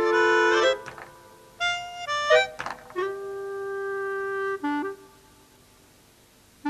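Incidental music led by a woodwind: long held notes, then short phrases and one sustained note, dying away about five seconds in. A short noisy swish, the loudest moment, cuts across it about two and a half seconds in.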